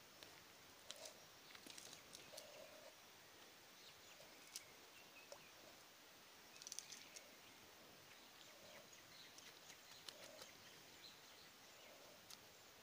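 Near silence: faint outdoor background with scattered faint ticks and crackles.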